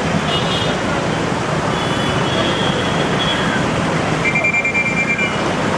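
Busy street traffic: a steady din of engines and motor scooters, with vehicle horns sounding briefly several times, the longest toot near the end.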